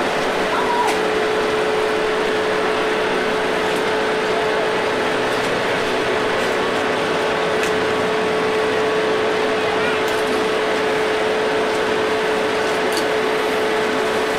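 A steady machine drone holding one constant hum note, with a few faint clicks every few seconds.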